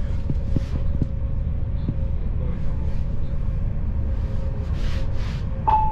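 Inside an electric commuter train running along the track: a steady low rumble with a faint steady hum over it, and a few light clicks from the wheels in the first two seconds. Just before the end, a single chime note sounds, the signal that comes before an onboard announcement.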